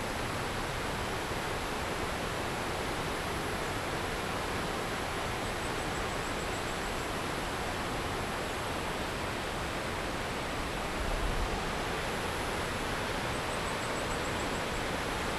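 Water pouring over a concrete river weir, a steady even rush.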